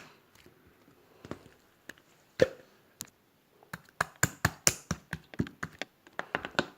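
Irregular sharp taps and knocks, a few scattered ones at first, then a quick uneven run of them from about four seconds in.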